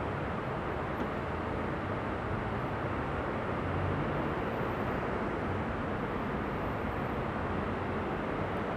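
Steady urban background noise: an even rumble and hiss of distant city traffic, with no distinct events.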